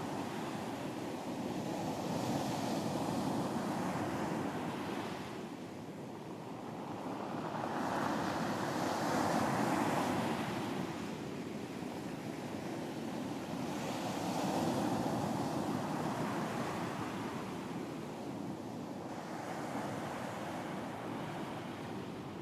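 Ocean surf breaking on a beach, four waves in a row, each one rising into a wash of noise and falling away, about every five to six seconds.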